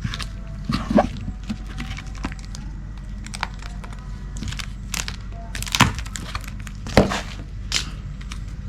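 Package being opened by hand: irregular crinkling, tearing and sharp cracks of packaging, the loudest about a second in and again around six and seven seconds in, over a steady low hum.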